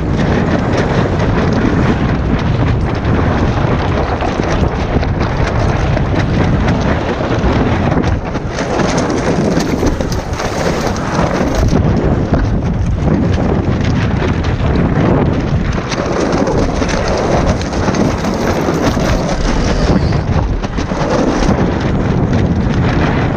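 Strong gusting wind buffeting the microphone aboard a Hobie 16 catamaran, loud and unbroken, with a constant patter of water and spray, in gusts of about 35 knots.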